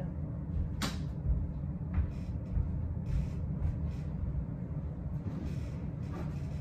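Steady low rumble, with a sharp click just under a second in and a lighter one about a second later. Soft rustling of a sofa cushion and its fabric cover being handled.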